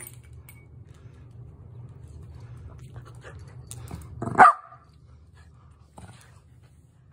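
Shetland sheepdog growling steadily in play, with one loud bark about four seconds in and another bark just at the end.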